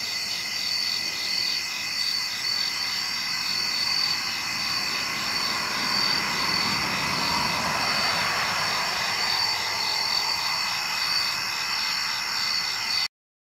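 Night chorus of crickets: several high, steady trills with a regular pulsing chirp among them. A low rushing noise swells and fades through the middle, and the sound cuts off suddenly near the end.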